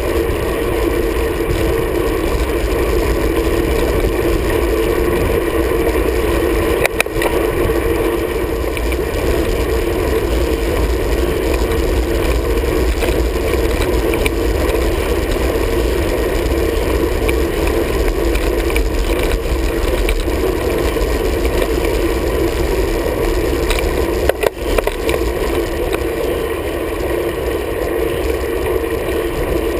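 Wind rushing over the microphone of a camera on a road bike's handlebars at speed, with steady tyre and drivetrain noise and a steady hum. Two short knocks, about seven seconds in and again about twenty-four seconds in.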